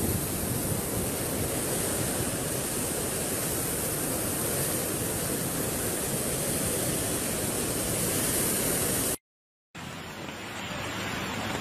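Floodwater rushing in a muddy torrent, a steady loud noise of churning water. About nine seconds in it cuts off to a moment of silence, then a quieter steady noise follows.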